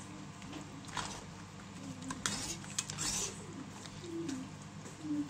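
Thick sauce simmering in an enamelled cast-iron casserole with low, irregular bubbling plops, while a metal slotted spoon stirs it and scrapes against the pot a few times, mostly between one and three seconds in.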